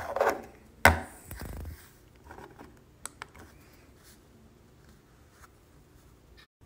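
A few knocks and scrapes of plastic LEGO figures handled on a table, the loudest a sharp knock about a second in, then a couple of light taps.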